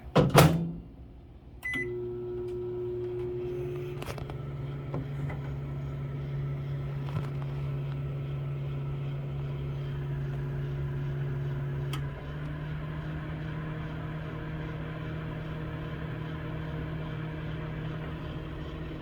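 A loud knock, then a short keypad beep, then a microwave oven running with a steady hum. The hum's pitch shifts slightly about twelve seconds in.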